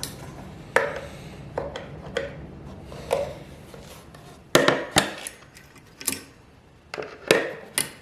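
A hammer tapping the steel tie-wire points of a shield staple to bend them over: about nine irregular, sharp taps, some with a short ring, the hardest ones in the second half.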